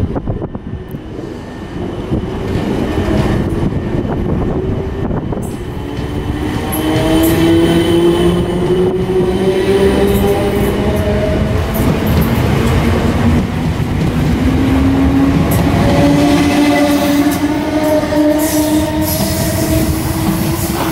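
Class 455 electric multiple unit pulling away and accelerating: its traction motors give a whine that rises in pitch in several successive stages over a heavy running rumble, with some wheel clicks near the end.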